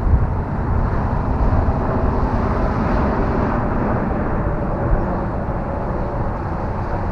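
Electric RC model plane (E-flite Carbon Cub S2) flying, its motor and propeller a faint steady hum under heavy wind rumble on the microphone.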